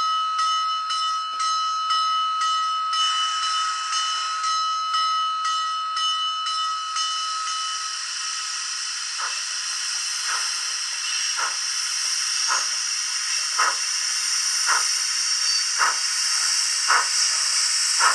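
Digital sound of a Rivarossi H0 Union Pacific Big Boy model locomotive's sound decoder: the locomotive bell rings with regular strikes for about the first eight seconds, then a steady steam hiss sets in with slow exhaust chuffs about once a second as the model moves at low speed.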